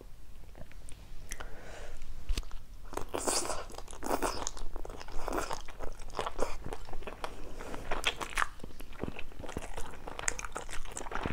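Close-miked chewing and crunching of crisp stir-fried squid tentacles, in irregular crunches.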